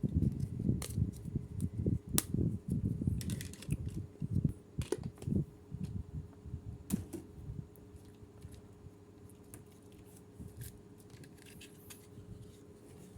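Plastic toy pieces and packaging being handled: irregular soft knocks and a few sharp clicks, busy for the first six seconds or so and then only faint ticks. A faint steady hum lies under it.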